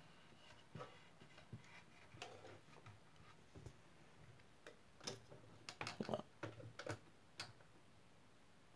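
Faint, irregular clicks and light taps from hands handling a diecast metal model truck and its tilted cab, with a denser run of clicks about five to seven seconds in.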